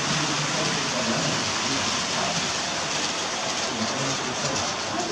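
Steady hiss of room noise with faint scattered voices, while an H0-scale model passenger train runs along the layout's track.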